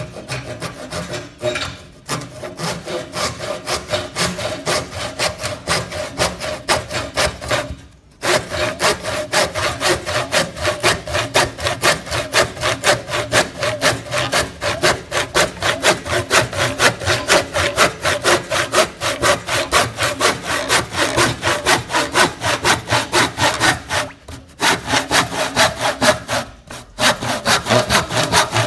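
Old Tramontina handsaw with plain, conventional teeth sawing through a rafter that is probably pine, in quick, even back-and-forth strokes, two to three a second, pausing briefly a few times.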